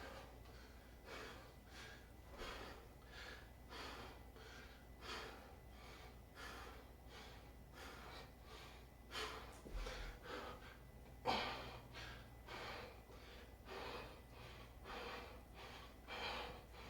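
A man breathing hard and rhythmically, faint, with short forceful breaths about once a second and a few stronger ones partway through: exertion breathing while lifting dumbbells through a set of shoulder raises.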